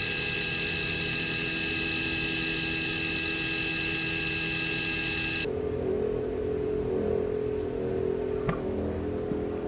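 CNC router running inside a concrete soundproofing enclosure: a steady machine hum with a high, even whine. About five and a half seconds in, the sound cuts abruptly to a lower, different machine hum, with a single click near the end.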